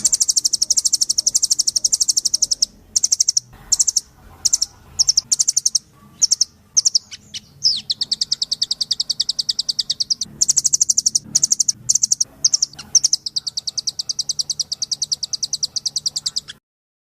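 Songbird masteran recording: a bird singing loud, high, very rapid trills of many quick repeated notes. Long runs alternate with short broken phrases, and the song cuts off just before the end.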